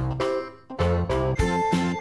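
Background music: one tune dies away about half a second in, and after a brief gap a new tune with evenly spaced notes starts.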